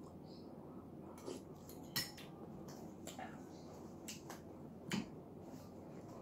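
A few faint, sharp clicks and light knocks of a metal spoon against a glass soup bowl as it is set down, over quiet room noise. The sharpest click comes about two seconds in, with a smaller one near five seconds.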